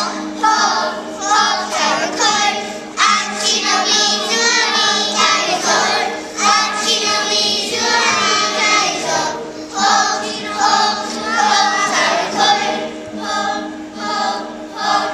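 A group of young children singing together as a choir, in phrases that break off briefly every second or so.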